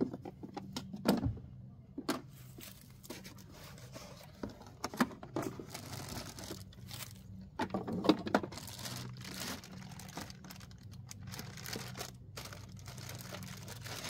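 Plastic bags crinkling and cardboard packing rustling and knocking as they are lifted out of a new portable 12 V fridge. Irregular handling noises, loudest about a second in and again about halfway through.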